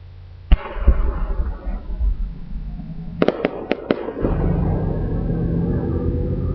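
Aerial firework shells bursting. A loud bang about half a second in is followed by crackling, then four sharp reports in quick succession about three seconds in, then a long low rumble.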